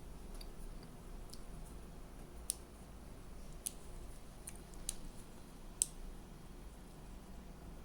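Small sharp clicks of a plastic connector plug being taken apart by hand, four louder ones a second or so apart among a few fainter ones, over a low steady hum.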